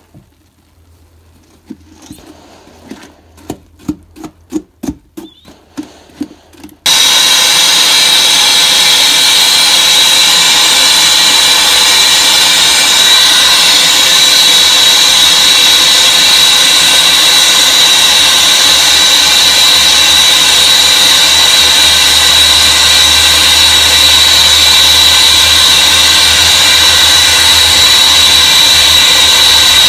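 A wooden stirring stick knocks several times against a stainless steel pot, then about seven seconds in a loud, steady machine noise with a high whine starts suddenly and runs on unchanged.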